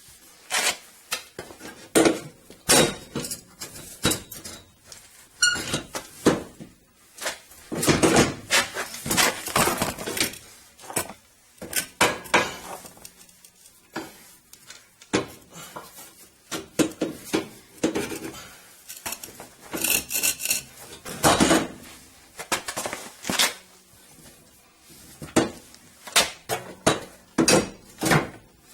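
VE Commodore rear strut and coil-spring assembly clanking and knocking against the suspension as it is wrestled out of the car: many irregular metal knocks, with dense flurries about a third of the way in and again past two-thirds.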